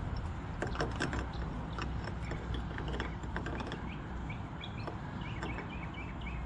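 Light metallic clicks and taps of a hand wrench working on the truck battery's terminal bolt, followed in the second half by a small bird chirping in a quick repeated series.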